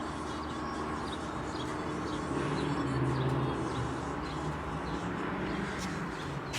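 Outdoor street ambience: a vehicle's engine rumble swells about halfway through over steady traffic noise, with short bird chirps.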